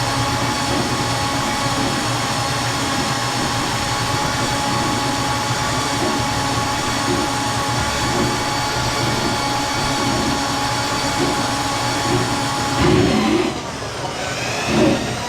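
Ridgid K-39 electric drain snake running, a steady motor hum with the spinning cable rattling in the tub drain. The motor stops about 13 seconds in, followed by a few short, irregular knocks.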